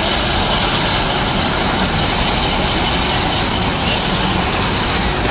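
Small park ride train running along its track past the listener: a steady, continuous rolling rumble with a thin high hiss.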